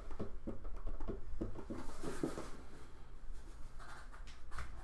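Soft, irregular clicks and scratches of hands handling small objects at a table, over a low steady hum.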